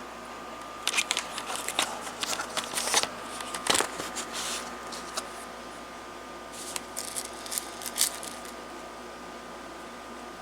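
Small plastic and metal clicks and rattles from handling a CO2 BB pistol and its magazine, checking it for something stuck inside. They come in two spells, about one to five seconds in and again about six and a half to eight seconds in.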